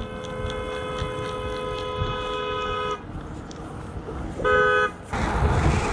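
Car horn sounding a long steady honk of about three seconds, then a second short, louder blast, followed by the rush of a car going past.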